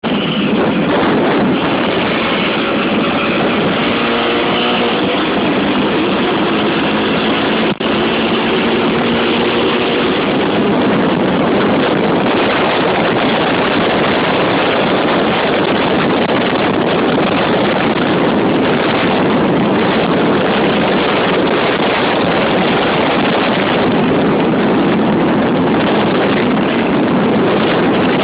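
Honda XR 250 Tornado's single-cylinder engine running at road speed, largely buried under loud, steady wind noise on the microphone. The engine note shows faintly through the wind in the first several seconds, and the sound cuts out for a moment about eight seconds in.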